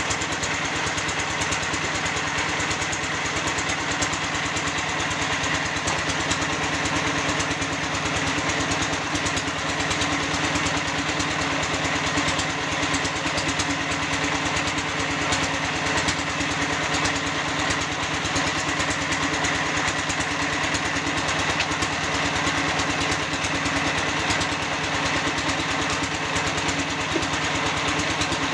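Small engine of a concrete block press machine running steadily at one speed, with a fast, even buzz of vibration.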